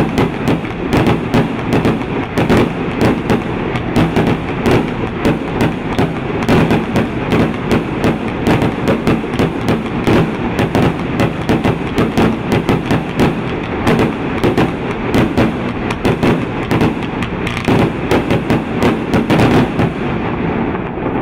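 Fireworks cake firing a rapid, steady string of blue and golden palm shots, several sharp reports a second over a continuous rushing noise. The shots stop about a second before the end, leaving a fading rumble.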